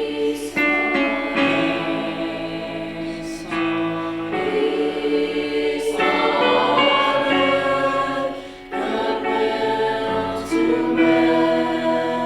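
A choir singing held chords, the notes changing every second or two.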